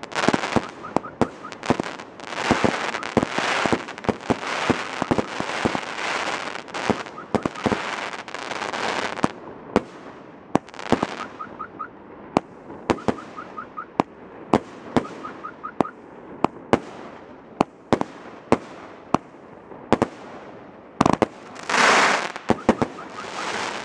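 Fireworks battery firing shot after shot: a string of sharp bangs from launches and aerial bursts, with hissing and crackling over the first several seconds and a loud hiss near the end.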